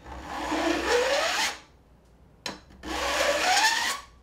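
A flat file drawn along the tops of a back saw's teeth, jointing the tooth line level: two long rasping strokes of about a second and a half each, the pitch rising through each stroke, with a light knock in the gap between them.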